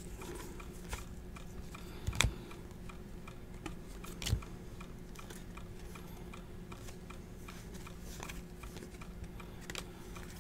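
Trading cards being slid and flicked one by one from one stack to another in the hands: a run of light clicks and snaps, with two louder snaps about two and four seconds in.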